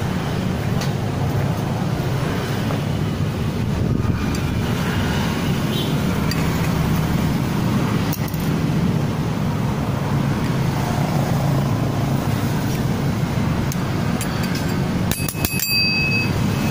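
Steady low hum of an engine running at a constant speed. About fifteen seconds in come a few sharp metallic clinks, one with a brief ringing tone.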